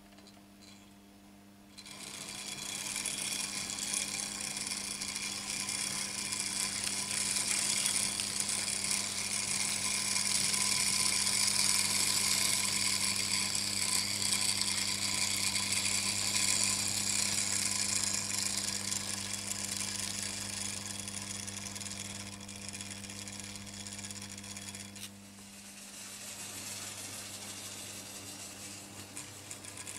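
Vintage Märklin H0 model train running on metal M-track, its motor and wheels rattling over a steady hum. The sound swells from about two seconds in, is loudest in the middle and eases off, dipping briefly near the end before carrying on.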